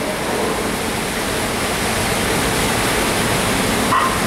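Steady rushing of water from the canyon set's special-effects rain and water. The level creeps up slightly as it goes on.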